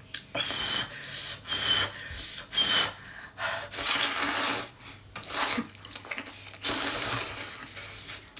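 Noodles being slurped from a spicy soup: a series of loud, airy sucking slurps, the first few ending in a short high whistling squeak.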